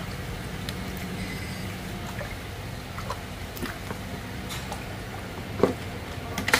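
Ducklings paddling and shifting about in shallow water in a plastic tray, giving small scattered splashes and drips, with a louder splash or knock near the end. A steady low hum runs underneath.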